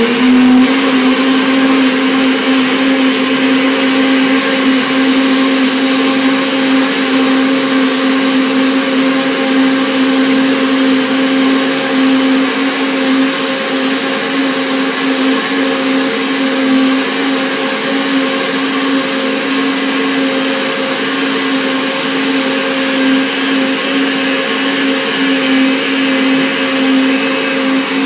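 Countertop blender running steadily at high speed, puréeing a thick load of bananas, raw peanuts, cilantro and orange-lemon juice into a smoothie. It makes a loud, even motor hum with a whine that holds one pitch throughout.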